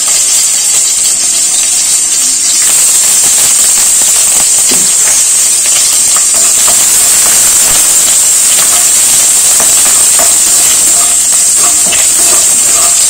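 Curry leaves, shallots and green chillies sizzling loudly in hot coconut oil in a kadai during tempering, a steady hiss that grows louder about two and a half seconds in. Scattered small pops and clicks of spattering oil and a spoon stirring run through it.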